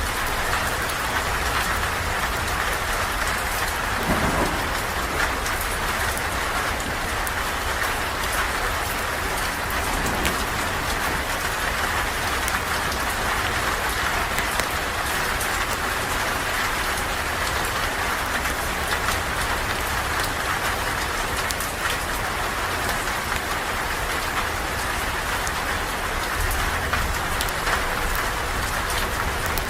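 Steady rain falling, an even hiss of drops with scattered faint ticks and a low rumble underneath.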